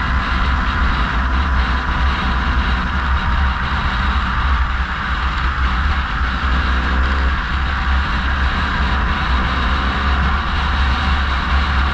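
Steady wind rumble on the microphone with road and tyre noise from moving along a road at speed.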